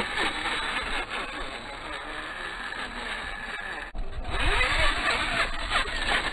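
Electric RC rock crawler's motor and gears whining, rising and falling in pitch, with its tires scrabbling over dirt and rock. The sound cuts out briefly about four seconds in, then comes back louder.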